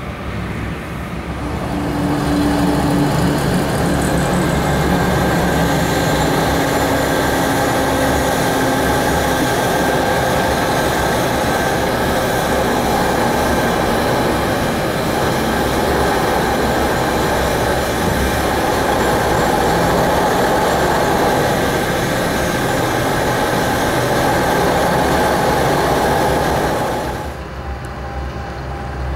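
Rhaetian Railway rotary snow blower 95403 at work on the track, its rotor running and throwing snow with a loud, steady rushing noise, heard close alongside from inside a car. The noise swells about a second and a half in and drops off near the end.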